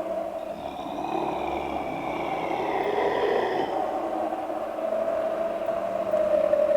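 Eerie Halloween sound-effect ambience: a steady low drone under a noisy hiss, with several high, wavering tones that slide downward and fade out a little under four seconds in.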